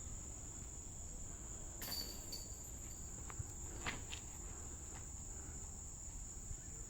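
Insects chirring outdoors: a steady, high-pitched drone, with a few faint clicks about two and four seconds in.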